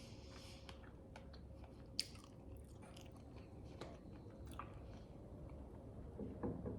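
A person chewing food with faint wet mouth sounds and small clicks, and one sharper click about two seconds in.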